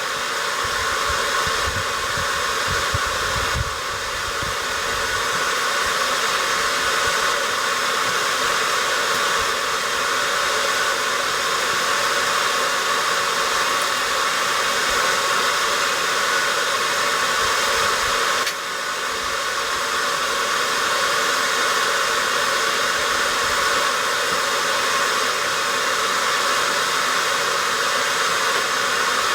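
Blacksmith's forge running hard: a steady rushing of the forced-air blower and fire while steel heats in it. There is a slight drop in level about two-thirds of the way through.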